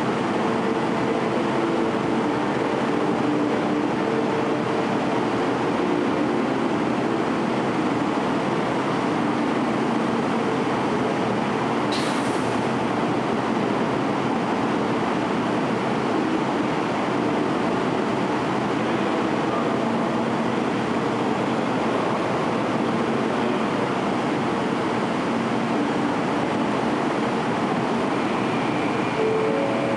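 Kyushu Shinkansen 800 series train standing at the platform: a steady hum and whir from its onboard equipment. A single brief click comes about twelve seconds in.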